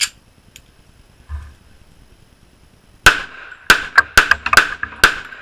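AJ Ordnance Thomas 45, a compact .45 ACP pistol, fired in a rapid string of sharp shots beginning about three seconds in. Before that there is only a single click at the start.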